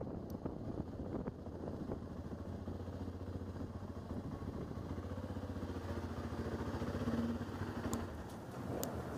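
Motorcycle engine running at a low, steady speed as the bike creeps along at walking pace. Two sharp clicks come near the end.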